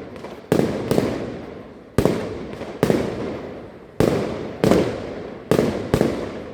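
Fireworks display: about eight sharp bangs of shells bursting at uneven intervals, some in quick pairs, each trailing off over most of a second.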